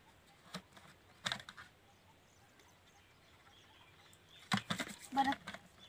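Plastic trigger spray bottle squirting in short bursts: a single squirt about a second in, then a quick run of several squirts near the end.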